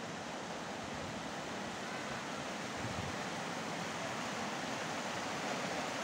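Shallow rocky forest stream rushing and splashing over stones and small cascades: a steady, even rush of water.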